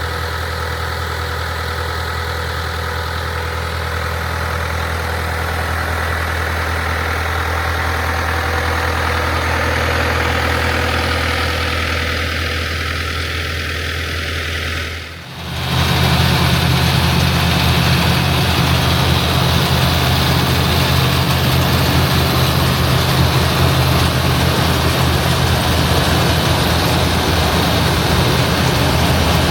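International Harvester tractor engine running steadily while driving an IH 82 pull-type combine. About halfway through there is an abrupt cut to a louder, deeper steady take of the same running machinery.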